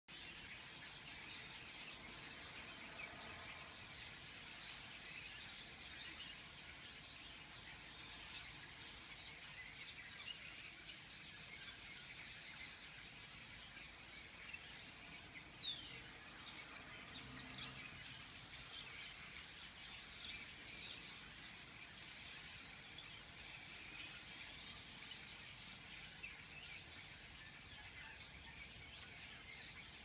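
A dense chatter of many small birds calling at once, made of short, high chirps that fall in pitch, with one longer falling whistle about halfway through.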